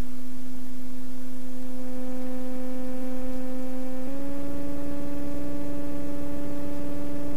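Sting light sport airplane's engine and propeller as a steady droning hum at takeoff power on the runway, its pitch stepping up once about four seconds in.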